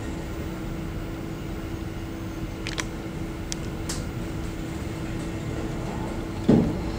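Suburban train running slowly, heard from inside its vestibule: a steady rumble with a constant hum, a few short high clicks or squeaks around the middle, and one loud knock near the end.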